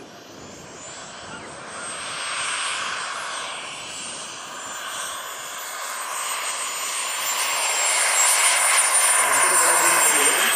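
Twin model jet turbines of a 1/16-scale RC Airbus A330-200 on its landing approach: a high, steady turbine whine over rushing jet noise, growing steadily louder as the plane comes in close.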